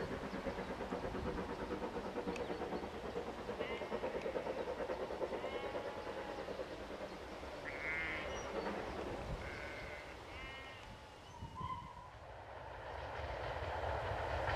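Steam locomotive working in the distance, its exhaust beats coming in a steady rhythm and fading away after about ten seconds. Near the end the sound of a train builds again as one approaches.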